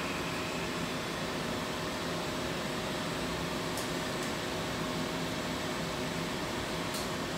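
Steady hum and hiss of running machinery in a metal-cutting shop, with a few faint light ticks about four seconds in and again near the end.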